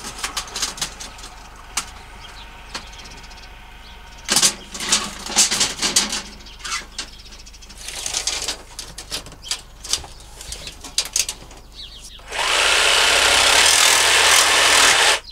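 Scattered clicks and knocks of a curtain track and tape measure being handled, then near the end a jigsaw cutting the thin curtain track to length in one steady run of about three seconds, the loudest sound, stopping suddenly.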